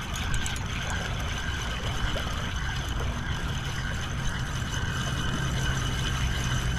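Spinning reel being cranked steadily to reel in a hooked fish, over a continuous low rumble.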